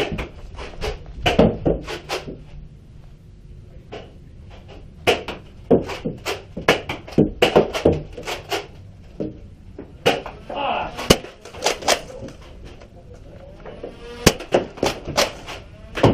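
Irregular sharp clicks and knocks from a Nerf blaster fight, blasters firing and foam darts striking, with muffled voices in between; the clicks come thickest in the middle.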